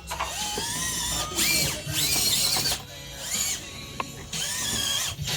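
Axial Deadbolt RC crawler's electric motor and gear drivetrain whining under throttle. The whine comes in several bursts that rise and fall in pitch as the truck crawls, with a sharp click about four seconds in.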